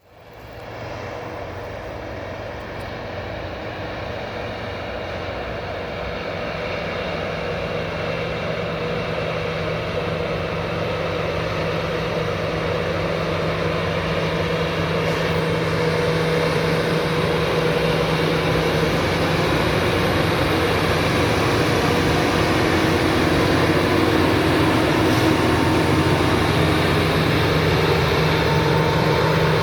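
Loram rail grinder travelling along the track, its engines droning steadily and slowly growing louder as it approaches. The grinding stones are not working, so this is only the machine running by.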